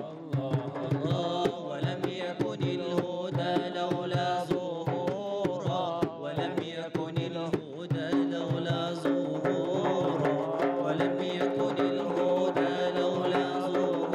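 Arabic devotional song (inshad) performed live: a hand-struck frame drum keeps a steady rhythm under a wavering, ornamented melody, which settles into longer held notes about halfway through.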